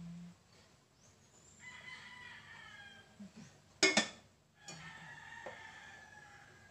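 A metal pot lid is set down with a single clank on the pot about four seconds in, the loudest sound. A rooster crows in the background twice, once before the clank and once after it.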